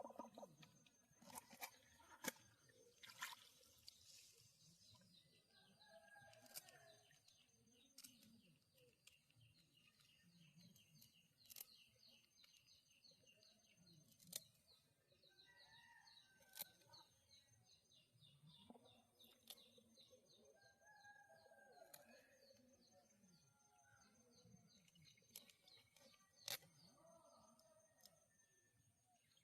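Faint outdoor birdsong: a thin repeated high trill in the first half and several short chirping calls throughout, with scattered sharp clicks.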